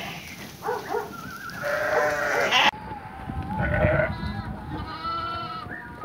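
Flock of sheep bleating, several calls overlapping one another.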